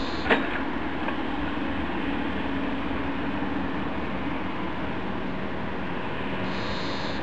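Mini excavator's diesel engine running steadily as it works an auger drill, with a single sharp knock about a third of a second in.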